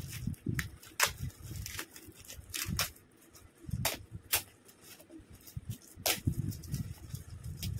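Metallic foil gift-wrap crinkling and rustling as it is folded and pressed around a gift by hand, with irregular sharp crackles over soft low bumps of handling.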